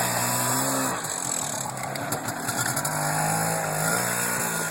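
Quad (ATV) engine running, its speed changing: it drops off about a second in and picks up again partway through.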